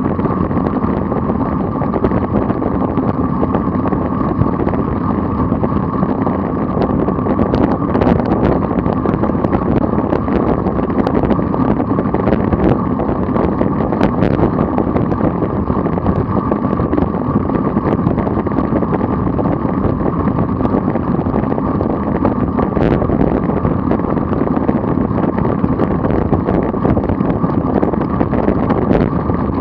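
Steady rush of wind over a bike-mounted camera's microphone at about 27 mph, mixed with tyre noise on the tarmac, with a sharp click or knock now and then.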